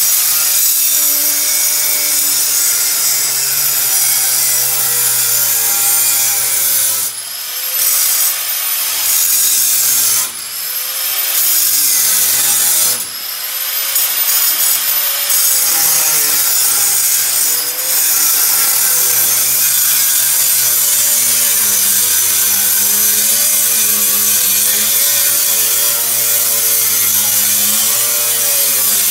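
Angle grinder cutting through a school bus's sheet-metal side panel: a loud, continuous grinding whose pitch sags and wavers as the wheel bites. A few times in the first half it eases off briefly, the motor's whine rising as the wheel comes free, then it bears down again.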